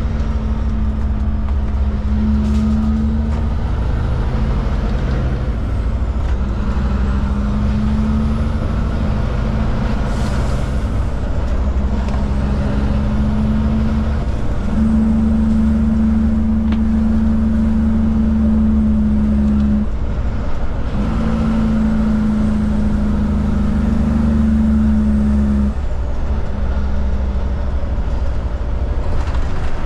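Heavy truck's diesel engine heard from inside the cab while it drives at road speed. The engine drone is steady, and its note shifts and dips briefly a few times, notably about two-thirds of the way through.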